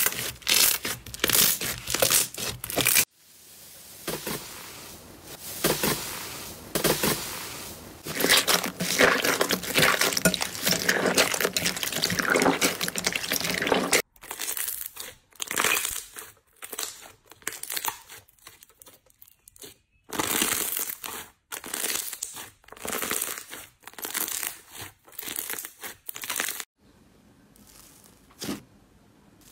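Hands squeezing, pressing and poking slime: runs of sticky crackles and pops, changing abruptly where one clip cuts to the next. The sound is much softer near the end.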